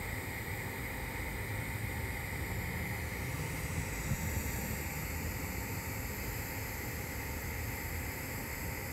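TIG welding arc on stainless steel pipe, a steady hiss, while the cap pass is laid at about 60 amps.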